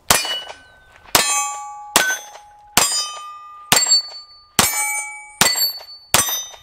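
Eight pistol shots from a Walther PPQ SC subcompact at a steady pace of a little under one a second, each hit answered by steel targets ringing with clear metallic tones that fade before the next shot.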